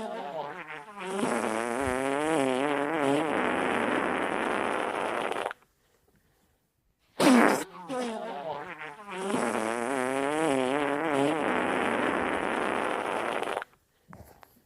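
Comic fart sound, played twice: each starts with a sharp blast, then runs into a long buzzy fart whose pitch wobbles up and down for about four seconds. A short silence separates the two.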